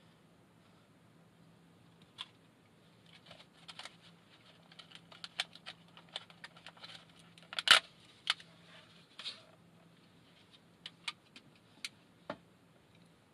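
Hands handling a plastic food pack on a wooden table: scattered clicks and crinkling, with one sharp snap a little before eight seconds in and a few single clicks near the end.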